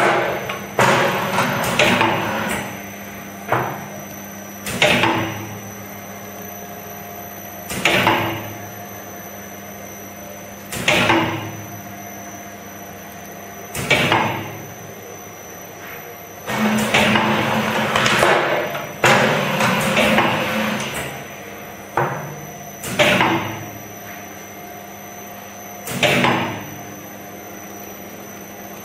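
Sandorè New Magic filled-dough extruding machine running with a steady hum, and a clunk about every three seconds as its forming mechanism cycles; around the middle the clunks come in a quicker run.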